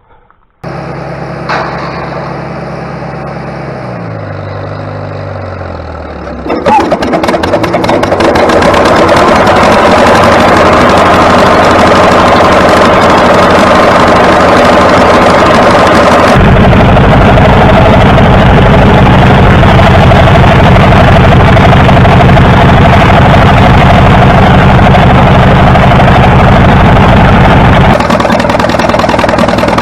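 International W400 tractor engine starting, then running loudly at a steady speed; the sound changes abruptly twice along the way.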